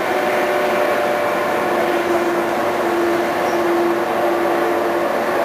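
Inside the cabin of an IVECO 580 bus under way: its diesel engine and ZF gearbox run steadily, with road noise and a steady whine that holds an even pitch.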